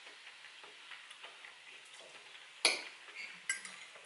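Quiet chewing with faint soft mouth clicks, then a sharp clink of a metal fork against a ceramic plate about two and a half seconds in, followed by a lighter clink.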